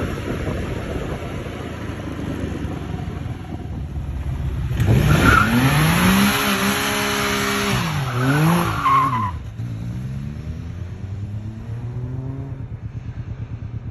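Can-Am Spyder F3's three-cylinder engine running, then revved hard from about five seconds in: the pitch climbs, holds, dips and rises again over a loud screeching hiss of the rear tyre spinning in a burnout. After about nine and a half seconds it drops back to a steady lower engine note.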